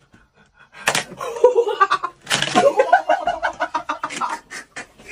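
A plastic snap mousetrap snaps shut on fingers with a sharp crack about a second in, then a rubber chicken held in the mouth squawks again and again.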